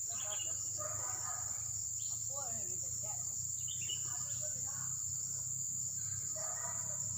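Steady, high-pitched chirring of insects, unbroken throughout, with faint calls rising and falling beneath it now and then.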